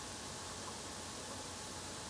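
Steady, faint hiss of recording noise (room tone), with no distinct sound standing out.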